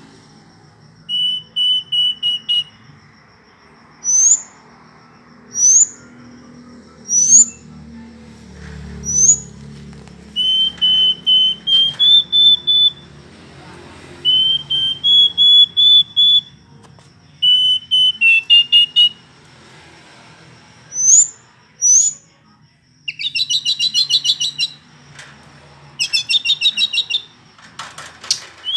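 Verditer flycatcher singing: phrases of repeated clear whistled notes, sharp upward-sweeping calls, and fast trills near the end.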